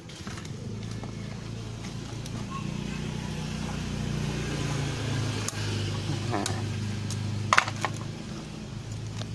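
A motor vehicle engine running nearby, a steady low hum that grows louder through the middle and eases near the end, with a few sharp clicks on top, the loudest about three-quarters of the way through.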